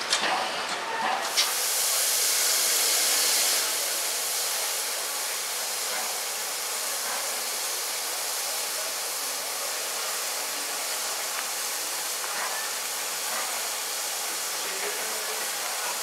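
Steam hissing from the DB class 01 express steam locomotive 01 150 as it moves slowly: a louder burst of hiss starts about a second in and lasts a couple of seconds, then settles into a steady hiss.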